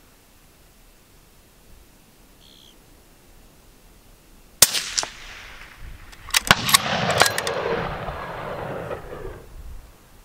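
A single shot from a Ruger American Gen II bolt-action rifle in .223 Remington, a sharp crack with a short ring-out, a little under halfway through. About two seconds later comes a quick run of sharp clicks and knocks over a rushing noise that fades over some three seconds.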